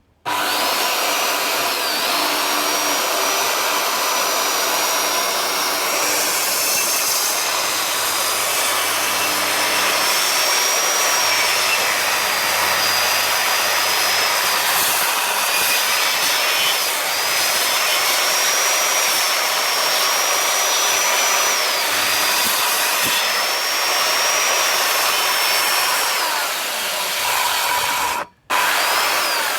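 Corded circular saw starting up and ripping a long, narrow strip off a board, its motor whine steady with brief dips in pitch as the blade takes the load. The sound cuts out for a moment near the end, then the saw runs on.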